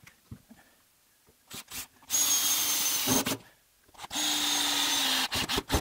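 Cordless drill-driver running at full speed into the workbench's wooden apron in two steady runs of about a second each, with short trigger blips before and after.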